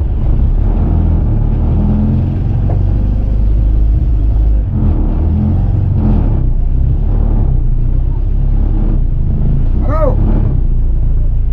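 Fishing boat's engine running steadily under way, a loud, continuous low drone.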